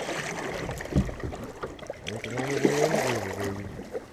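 River water lapping and trickling around a kayak drifting on the current, with a low thump about a second in. A voice murmurs briefly in the second half.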